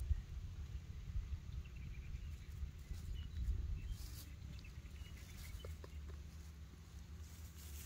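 Low, uneven rumble of wind on the microphone, with a few faint, short, high animal chirps.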